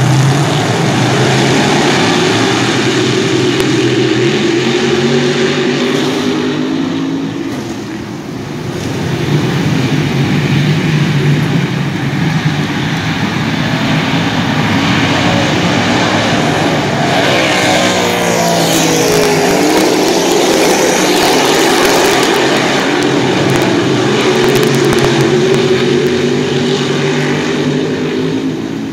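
A field of dirt modified race cars running on a dirt oval, a loud blend of engines whose pitch rises and falls over and over as the cars lap. The sound dips briefly about eight seconds in.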